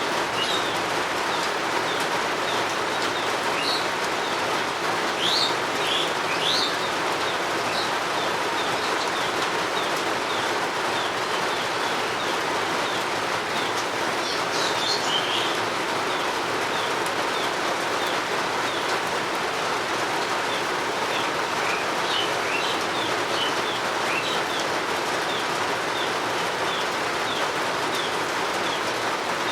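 Steady rain hiss with birds chirping over it: a run of short repeated chirps goes on throughout, with brighter calls a few seconds in, around the middle and again later.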